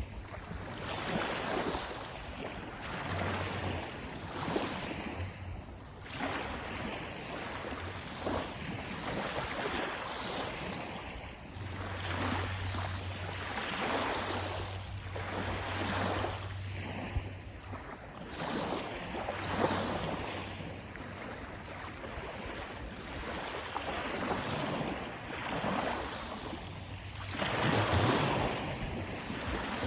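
Sea waves breaking and washing in, one surge of hiss every two to three seconds, with a bigger wave near the end.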